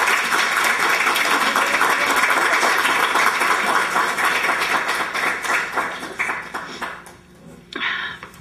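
A small audience applauding, the clapping dying away about seven seconds in.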